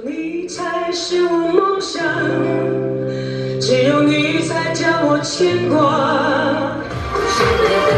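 Mandarin pop song: a woman's voice sings long, held notes over the backing music.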